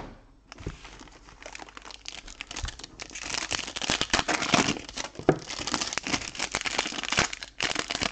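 Foil trading-card pack wrapper crinkling and crackling as it is handled and torn open, growing louder about three seconds in.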